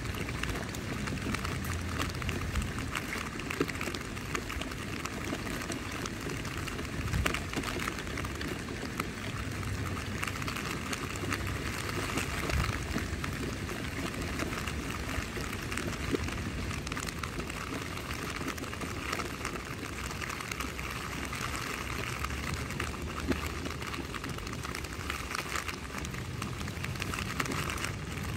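Steady rain falling on tent fabric: a dense, even hiss made of many small drop taps, with a few louder single drops standing out.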